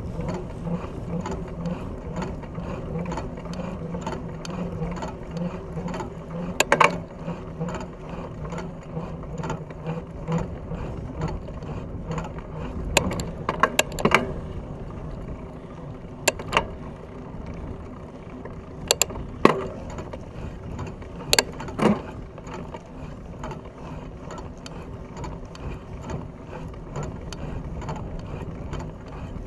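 Fat bike rolling on asphalt: a steady hum from its knobby tyres and a mechanical ticking from the drivetrain, with several sharp clicks and knocks from the bike rattling over the road through the middle.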